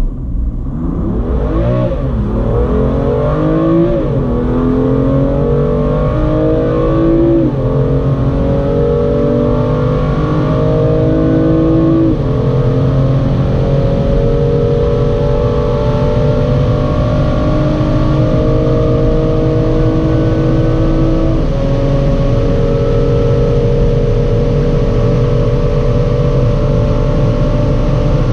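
BMW M2 Competition's 3.0-litre twin-turbo inline-six under full-throttle acceleration, its note climbing and then dropping with each upshift of the seven-speed dual-clutch gearbox. There are five upshifts: three quick ones in the first seven or eight seconds, then two far apart, with the pitch rising more and more slowly in the higher gears.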